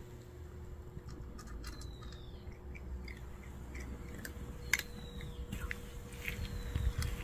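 A cat crunching dry kibble from a bowl: irregular crisp chewing clicks. A bird gives a thin falling call three times.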